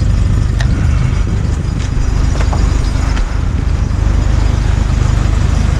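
A vehicle engine idling steadily with a low rumble, with a few light clicks over it.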